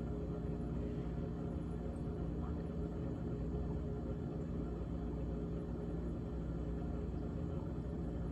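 GE GTH18XCTZRBB refrigerator running with a steady low hum and rattle from its evaporator fan.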